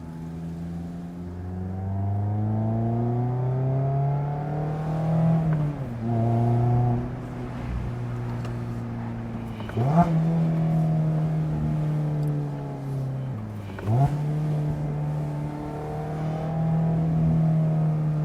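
2024 Mazda MX-5 Miata's 2.0-litre four-cylinder engine through an aftermarket exhaust, pulling up through the revs under acceleration for several seconds before the driver lifts off. About 10 and 14 seconds in, the revs jump sharply and hold higher, as on downshifts in the manual gearbox, and the engine then runs steadily.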